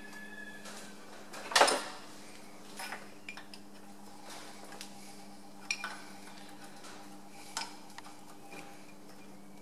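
Scattered metal clinks and taps from hand work on a metal lathe's change-gear train, over a steady low hum. The loudest clink comes about one and a half seconds in.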